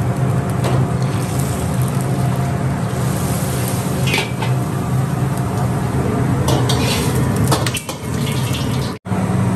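Broccoli and shrimp being lifted out of boiling water in a wok with a perforated metal strainer ladle: water splashing and draining back into the wok, with several metal clinks and scrapes of the ladle against the wok. A steady low hum from the gas wok burner runs underneath, and the sound cuts out abruptly near the end.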